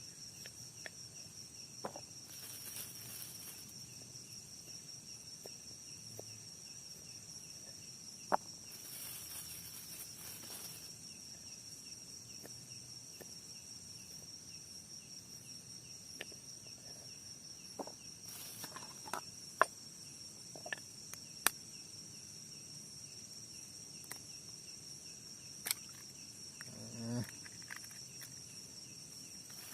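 Night insects, cricket-like, keeping up a steady high-pitched chorus, broken by scattered sharp clicks and knocks.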